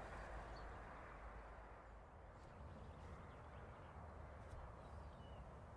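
Near silence: faint outdoor ambience with a few faint, short, high bird chirps.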